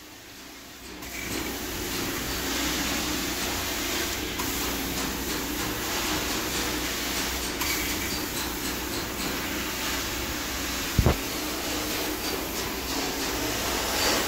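Carpet extraction machine running with a steady vacuum noise and hum, coming up about a second in. A short double knock sounds late on.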